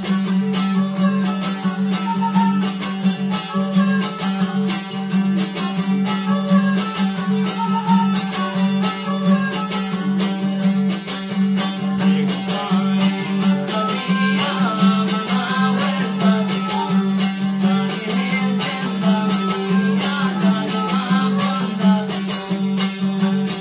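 Baloch folk instrumental: a bowed suroz fiddle plays a wavering melody over a damburag lute. The damburag is strummed in a fast, even rhythm, with a constant low drone underneath. The fiddle line comes forward more strongly about halfway through.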